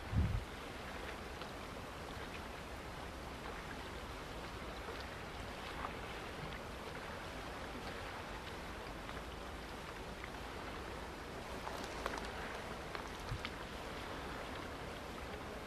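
Steady outdoor wash of wind and choppy water with faint small ticks of lapping, and one brief low thump just after the start.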